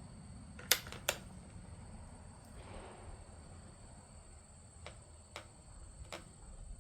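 Winchester Model 52 .22 rimfire target rifle being worked on the bench: two sharp clicks about a third of a second apart, then three fainter clicks a few seconds later.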